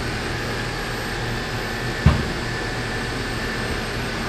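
Steady background hum and hiss of a large shop building, with one short low thump about two seconds in.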